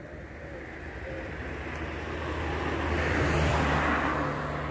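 A car driving past close by: engine and tyre noise swell to a peak about three and a half seconds in, then fall away.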